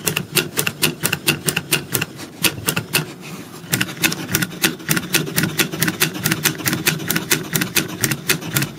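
Hand-cranked wooden snake automaton clicking and clattering as its side handle is wound and the jointed wooden snake wriggles: sharp, rapid clicks about five a second over a low wooden rattle, with a short lull a little past three seconds in.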